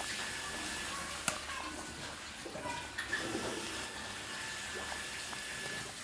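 A pot of beef and vegetable soup at a rolling boil, bubbling, while a metal ladle is stirred and skimmed through the broth. A sharp clink of the ladle against the stainless steel pot comes about a second in, and a few lighter knocks come near the middle.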